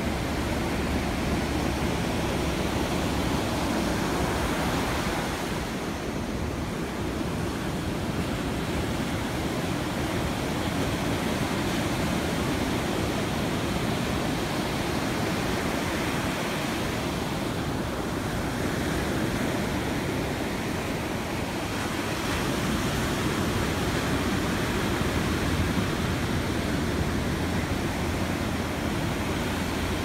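Pacific Ocean surf breaking and washing up a sandy beach: a steady rush of water noise that swells a few times as waves come in.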